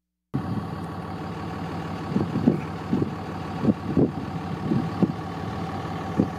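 Vehicle engine running steadily, with irregular gusts of wind buffeting the microphone. The sound cuts in abruptly just after the start.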